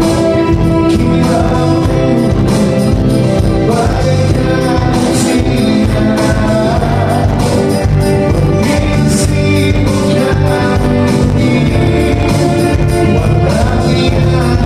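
Live band playing a song with a singer, over a steady drum beat and bass.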